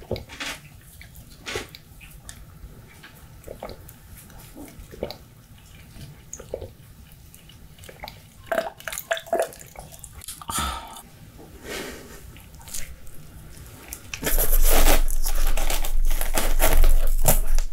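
Close-miked mouth sounds of drinking from a glass mug: soft clicks, sips and swallows. About fourteen seconds in, a loud, dense rustling starts and runs on, as pizza is handled with plastic-gloved hands.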